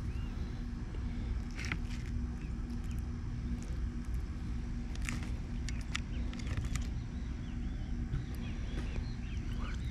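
Birds chirping in the background over a steady low hum and rumble, with a few light clicks of a metal fork against a plate.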